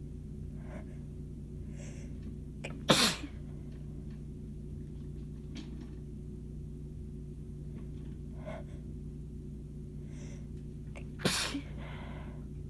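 A woman's sneezing fit: two loud sneezes, one about three seconds in and one near the end, with faint breathing and build-up inhales between them.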